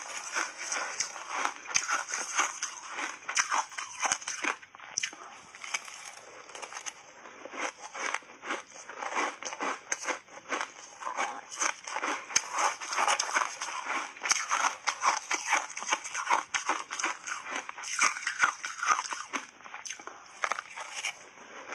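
Close-miked crunching and chewing of refrozen shaved ice coated in matcha powder: dense crackling crunches in quick succession throughout.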